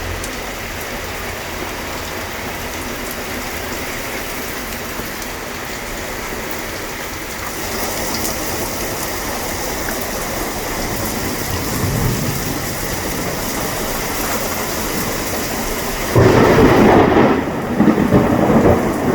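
Heavy rain pouring steadily, growing louder about eight seconds in. About three seconds before the end, a sudden loud rumble of thunder comes in over it.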